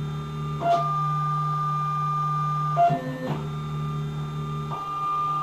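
CNC-converted Sieg X2 mini mill running its program as a test pass in the air above the part: its stepper-driven axes give a steady, organ-like whine that jumps to a new pitch about three times as the moves change speed and direction.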